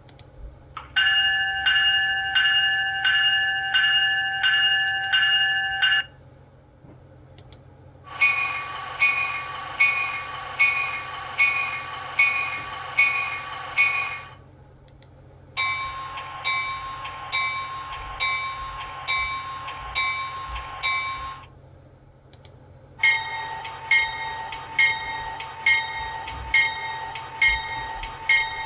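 Four diesel locomotive bells play in turn, each ringing with even, repeated strikes for about six seconds with short gaps between them. The first is a Graham-White electronic bell (E-Bell), followed by two EMD steel bells and a GE GEVO steel bell. A steady low hum runs underneath.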